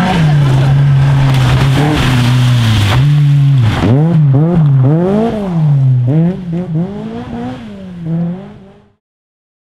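Opel Kadett C Coupé rally car's engine held at high revs for about three seconds, then revved up and down sharply several times. It fades out near the end.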